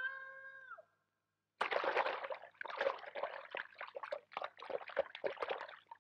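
Water splashing in uneven bursts, starting about a second and a half in, as the small hedgehog thrashes about after falling into a river. Before it, a held pitched call fades out under a second in.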